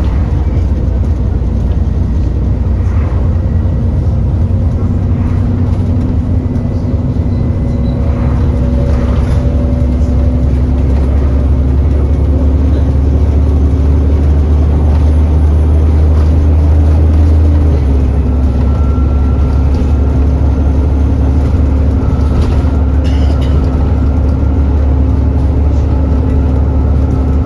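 Alexander Dennis Enviro400 E40D bus heard from on board, its Cummins diesel running under way with a loud, steady low drone and engine tones that rise slowly and shift about two-thirds of the way through. From that point a thin, steady high whine joins in: the loud 'hoover' noise.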